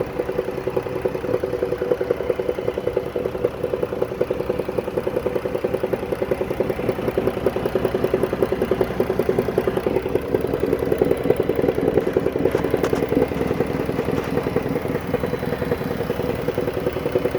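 A 2014 Dodge Caravan's 3.6-litre V6 idling with a steady, fast metallic clatter. The clatter comes from a flexplate badly cracked around its centre.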